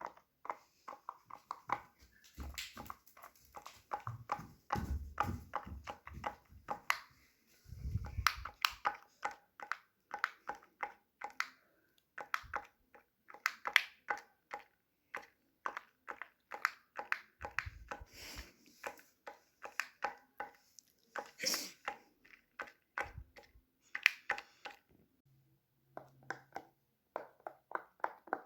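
Fidget toys being handled: a steady stream of small plastic clicks and taps, with a few dull thumps now and then.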